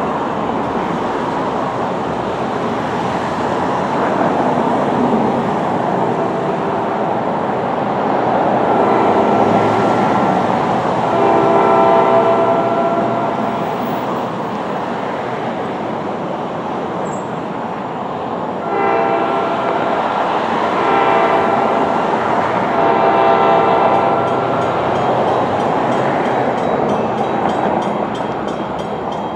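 Multi-chime air horn of an approaching NJ Transit ALP-45DP dual-mode locomotive, heard from a distance: several blasts in two groups, the first about a third of the way in and the second a little past the middle, over a steady rushing background noise.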